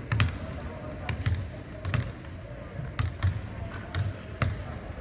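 A series of sharp thuds at irregular spacing, about ten in five seconds.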